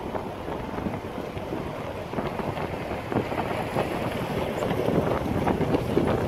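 Wind buffeting the microphone outdoors, a gusty low rumble that grows louder toward the end.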